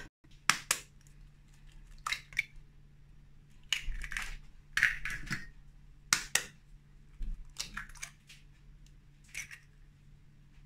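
Eggs being cracked into a stainless steel mixing bowl: several sharp taps and crunches of breaking shell, one egg after another.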